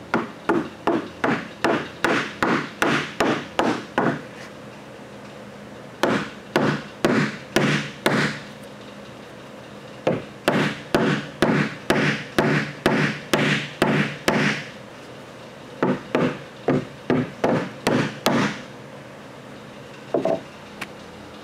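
Hammer blows on thick OSB, in runs of several strikes about three a second with short pauses between runs, knocking the table's mortise-and-tenon joints together.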